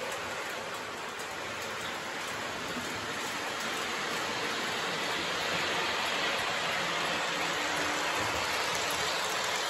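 Lionel Hogwarts Express O-gauge model train running on three-rail track: a steady rushing rumble of wheels and motor that grows a little louder as the train comes near.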